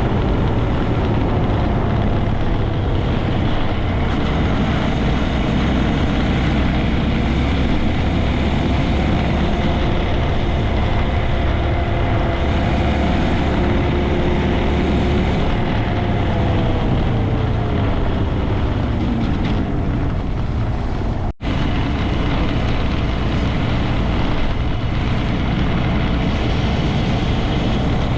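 Honda Grom 125's single-cylinder engine running on the move, its note steady, then falling in pitch as it slows about two-thirds of the way through. The sound cuts out for an instant shortly after.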